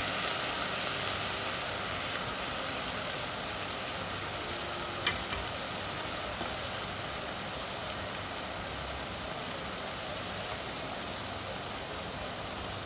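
Diced onions and capsicum with sauces sizzling steadily in oil in a hot pan. One sharp knock about five seconds in is the loudest moment.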